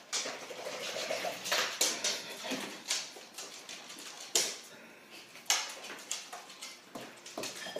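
Puppy and big dog playing: a run of scuffling and paw clicks on the floor, with louder sharp knocks about four and a half and five and a half seconds in.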